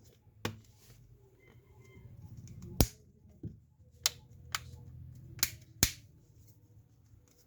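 Plastic back cover of a Realme C2 phone being pressed back onto the body, its snap clips clicking into place in a series of about seven sharp, separate clicks.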